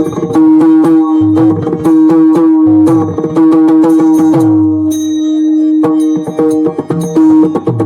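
Instrumental passage of Marathi devotional music: Indian hand drums play a quick rhythm with sliding bass strokes over a steady held melodic note. The drumming thins out briefly around the fifth second.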